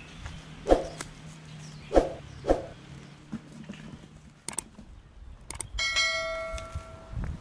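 A subscribe-button sound effect: two mouse clicks, then a bright bell chime that rings for about a second and a half. Earlier come three short, loud, sharp sounds of unclear source.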